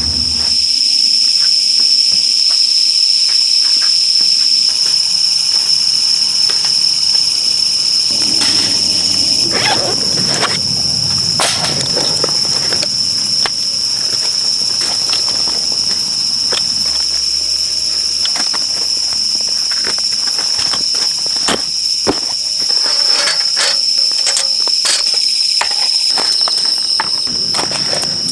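Steady, high-pitched chorus of night insects such as crickets, with scattered clicks and rustles from camping gear being handled.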